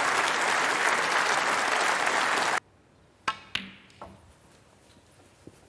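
Audience applauding, cut off abruptly about two and a half seconds in; then, over a quiet hall, two sharp clicks of snooker balls in quick succession and a fainter click soon after.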